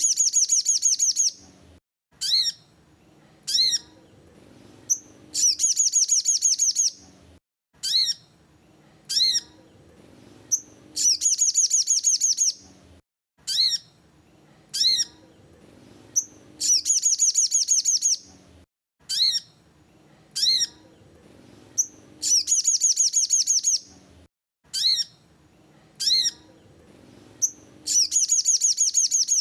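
Sogon (crested jay) calling: a fast, dry rattle of rapid high notes lasting over a second, repeated about every five and a half seconds, with single sharp chips between the rattles.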